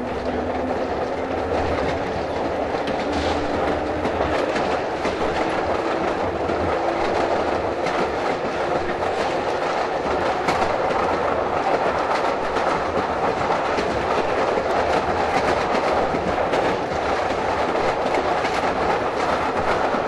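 Pacific Electric "Hollywood" interurban car running on the rails, heard from behind the motorman: steady wheel-and-track noise with clicks over the rail joints, and a motor whine rising in pitch through the first half as the car picks up speed.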